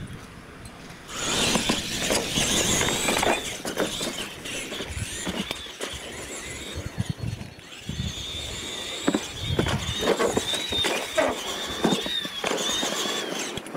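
Two radio-controlled monster trucks racing on a dirt track, starting off about a second in: their electric motors and gears whine high and rise and fall with the throttle, with scattered knocks as the trucks hit ramps and land.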